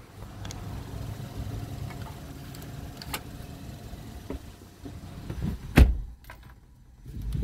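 A car idling with its window down, with small clicks and knocks of handling a card at a pay kiosk and one loud thump about six seconds in. Near the end a steady low mechanical sound starts up.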